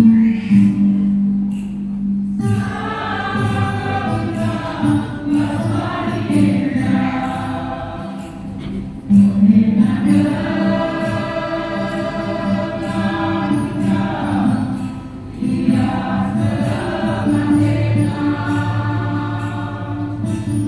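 Church choir singing a hymn, phrase after phrase, over sustained low accompaniment notes and a steady ticking percussion beat.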